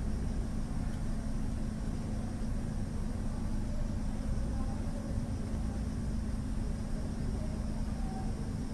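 Steady low background rumble with a constant hum, unchanging throughout.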